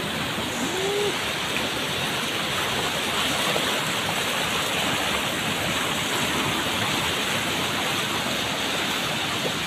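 Muddy floodwater rushing fast past a concrete path edge: a steady, unbroken rushing.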